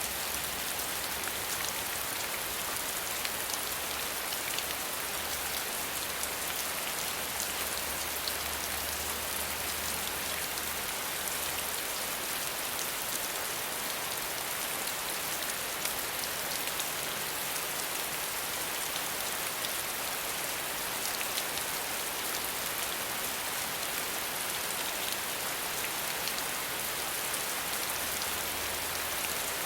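Steady rain, a dense, even patter of drops.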